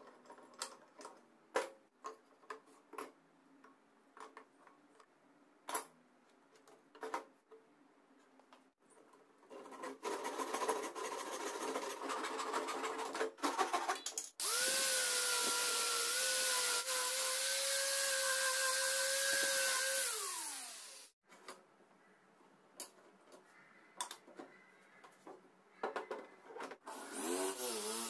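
Workshop knocks and clicks, then an electric power tool runs: it starts about ten seconds in, runs loud and steady with a whine and a hiss from about fourteen seconds, and winds down with falling pitch about twenty seconds in. It starts up again briefly near the end.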